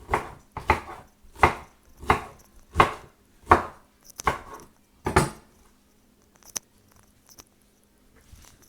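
Knife slicing through a cabbage and striking the cutting board, eight steady strokes that stop about five seconds in, followed by a couple of faint clicks.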